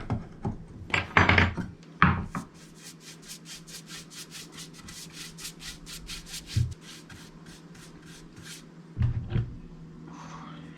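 An applicator stroking polyurethane clear gloss finish back and forth over a wooden sign, about three even strokes a second. It follows a few louder knocks and scrapes in the first two seconds.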